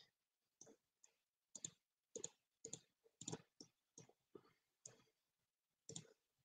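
Faint computer mouse clicks, about a dozen short clicks at uneven intervals of around half a second.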